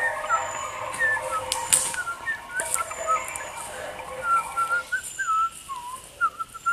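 A string of short whistled notes, each bending up or down, in a wandering, tune-like line, with a few sharp cracks among them.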